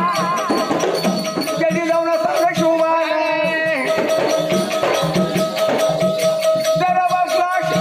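Marathi jagran gondhal folk music: a long held note over steady percussion with a rattling beat, with a brief gliding vocal-like phrase about three seconds in.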